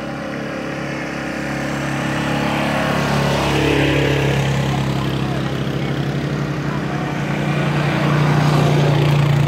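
Quad bike (ATV) engine running at low speed as it rolls toward and past the listener: a steady low engine note that swells about halfway and is loudest near the end.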